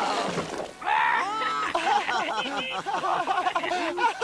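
Cartoon voices laughing and giggling at length, starting about a second in, just after the tail of a long cry falling in pitch.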